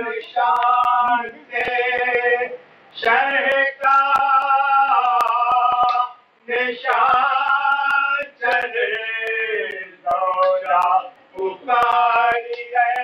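A solo voice singing a slow devotional recitation, the kind sung in Shia mourning gatherings. Long held, wavering notes come in phrases of a second or two, broken by short breaths.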